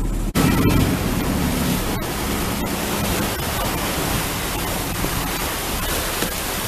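Steady rushing noise of wind on the microphone and water at sea, with a low boat-engine drone under it for the first few seconds.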